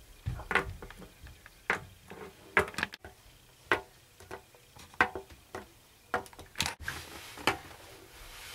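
Irregular light taps and clicks, about one a second, from a small plastic Littlest Pet Shop figure being handled and knocked along a hard surface.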